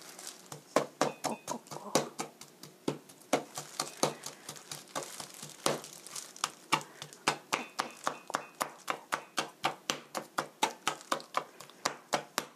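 Chef's knife scoring raw chicken thighs, the blade tapping down through the meat onto a plastic cutting board again and again. The taps are sharp and come irregularly at first, then quicken to an even run of about four a second in the second half.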